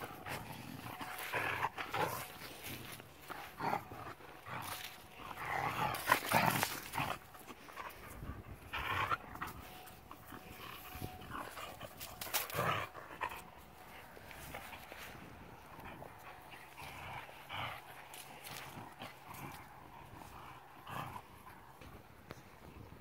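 German Shepherd panting and growling in play during a tug of war, with scuffling in the grass, in irregular bursts that are loudest about six seconds in.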